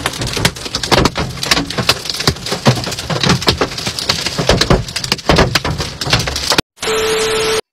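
Hailstones pelting a car's cracked windshield and roof, heard from inside the cabin: a dense, rapid clatter of sharp hits. Near the end the clatter cuts off, and a brief steady hiss with a steady tone plays for under a second and stops abruptly.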